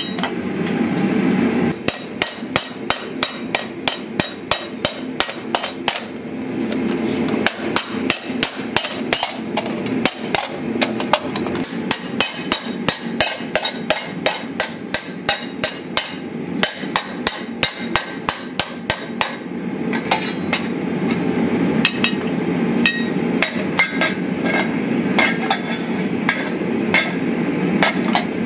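Hand hammer blows on a steel disc being dished into a round steel ring on the anvil, forging a shield boss: a long, even run of metal-on-metal strikes, about two to three a second, with a short pause about six seconds in. A steady low hum runs underneath.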